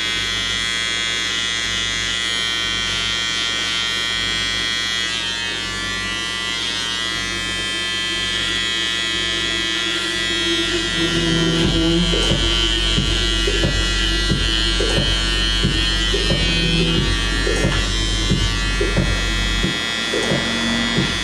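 Electric hair clipper buzzing steadily as it works along the beard and jawline. Background music with a steady beat comes in about halfway through.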